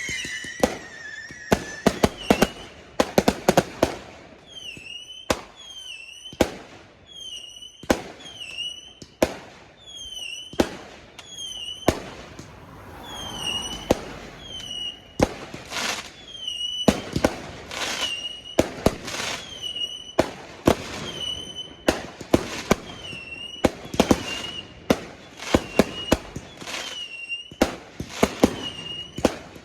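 Fireworks going off in rapid succession: many sharp bangs with crackling between, and a short high whistle recurring about once a second alongside them.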